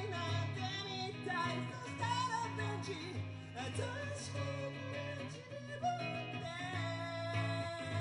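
Live band playing a song: a voice singing over a semi-acoustic guitar, with a steady low bass underneath.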